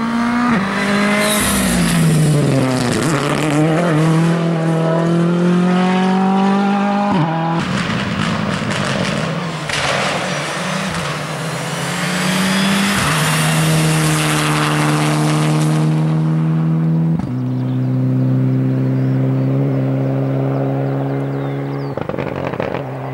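Turbocharged four-cylinder rally cars on a special stage: a Ford Fiesta R5, then a Mitsubishi Lancer Evolution IX. The engine climbs in pitch under full throttle, drops at each upshift, and passes through a harsh noisy stretch in the middle. Later an engine holds a steady note, which steps down once.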